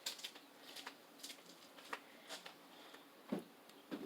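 Faint, scattered light clicks and taps from handling the hydraulic hammer's small metal locking pins, about seven over four seconds with a slightly louder one near the end.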